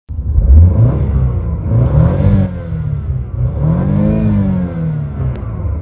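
Car engine revved in park, climbing to high revs twice and dropping back between and after.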